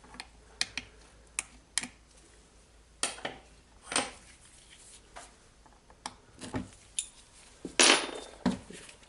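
Screwdriver bits and small metal tools clinking and clicking as they are handled and swapped, in scattered separate clicks, with a louder metal clatter near the end.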